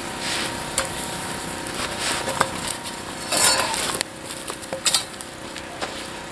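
Wood fire crackling and hissing, with a metal garden rake scraping and clinking against a cast iron pot and frying pan as they are turned in the flames. There are sharp crackles throughout and several short scrapes, the loudest about three and a half seconds in.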